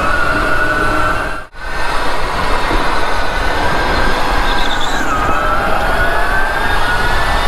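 Go-kart running at speed, heard from the driver's seat: a steady whine that dips in pitch and climbs back about five seconds in, over a loud rushing noise. The sound drops out for an instant about one and a half seconds in.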